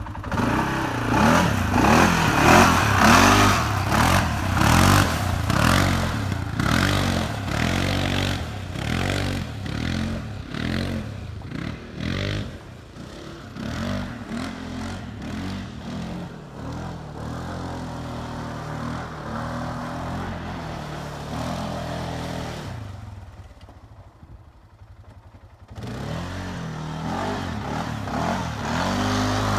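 2016 Arctic Cat 700 Mud Pro ATV's single-cylinder engine revving up and down again and again as it churns through deep mud and water, loudest near the start and fainter as the quad moves off. The sound drops away briefly about three-quarters through before the engine comes back in.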